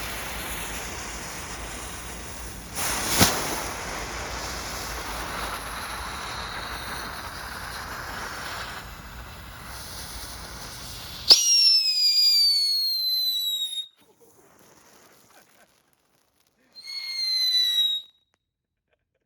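Megacycle wheeled novelty firework burning with a steady hiss and a sharp crack about three seconds in. Near the middle it breaks into a loud whistle that falls slightly in pitch and lasts a couple of seconds, then gives one shorter whistle near the end.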